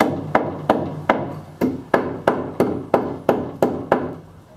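Hammer striking the camper's wooden stud framing: about a dozen even blows, roughly three a second, each with a short ring, stopping shortly before the end.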